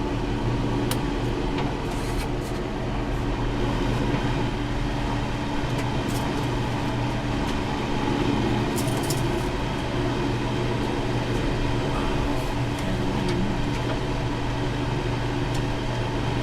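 Steady drone of an electric fan blowing, with a few faint clicks of hand tools.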